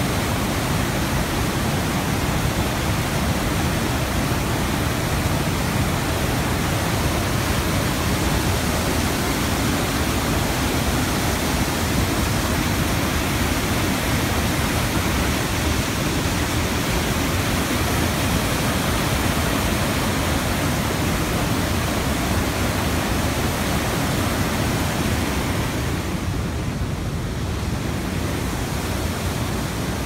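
Swollen, muddy waterfall and rapids rushing steadily with a dense, even water noise, a little quieter near the end.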